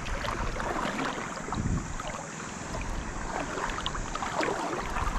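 Water lapping and sloshing, with wind on the microphone and scattered light clicks.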